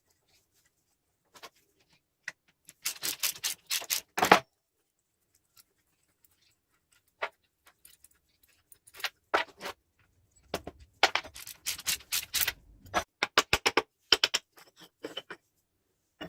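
Metal clicks and knocks in quick runs of several strokes, two busy stretches with pauses between, the loudest a sharp knock a little after four seconds in: tools and gearbox parts being handled during work on an old gearbox.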